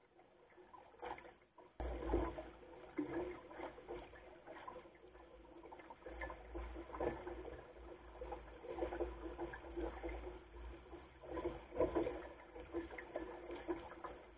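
Water splashing and gurgling against the hull of a Goat Island Skiff sailing dinghy under way, in irregular surges, with a low rumble underneath. A sudden cut about two seconds in, after which the splashing is louder and busier.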